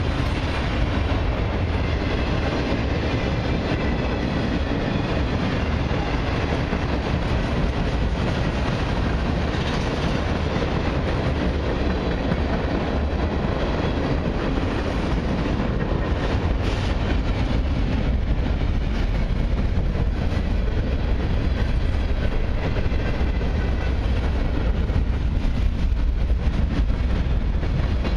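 Freight train cars, autoracks and tank cars, rolling past close by: a steady rumble of steel wheels on rail, with a few clicks of wheels over the rail joints about two-thirds of the way through.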